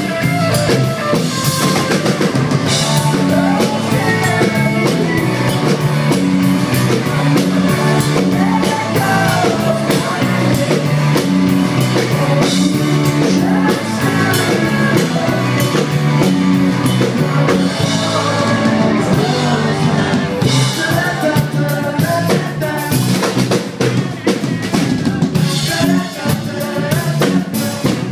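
Live band playing a funky rock song: a driving drum kit with rimshots and kick drum over a moving bass line, with other instruments playing above.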